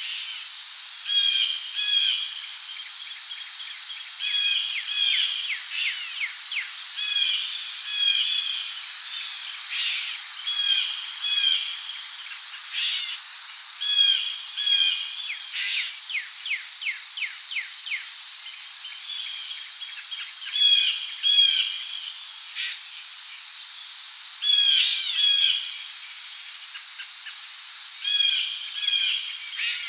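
Tropical rainforest ambience: a steady high-pitched drone of insects such as crickets, with birds repeating short paired chirps every second or two and, twice, a quick run of clicking notes.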